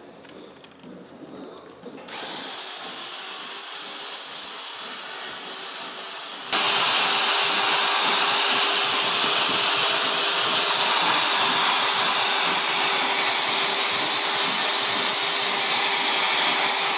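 Handheld electric drill with a paddle mixer stirring a slurry in a plastic tub. It comes on about two seconds in and becomes much louder about six and a half seconds in, then runs steadily with a high whine.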